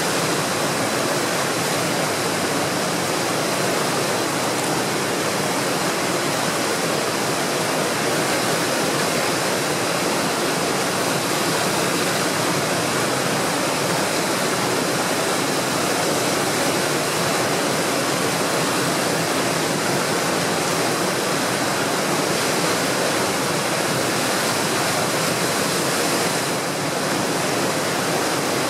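Skookumchuck tidal rapids rushing at a big tidal exchange: a steady, loud wash of whitewater breaking around a large standing wave.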